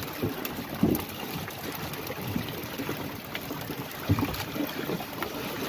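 Sea water sloshing and trickling around a small boat's hull and a net of fish hauled alongside, with a couple of sharp knocks from handling.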